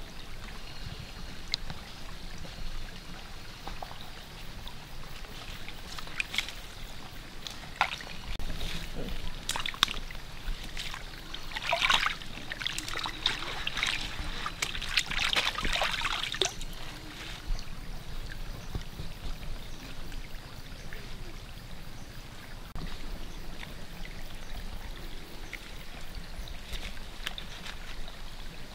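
Water splashing and trickling as chillies and a woven bamboo basket are washed by hand in a shallow pool. The splashing is loudest and busiest about halfway through, while the basket is swished and scrubbed in the water.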